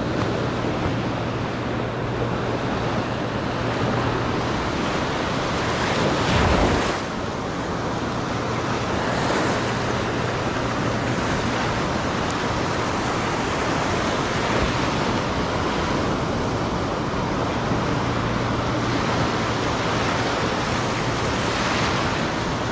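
Ocean surf breaking and washing up the shore close by, with wind on the microphone; one louder surge about six seconds in.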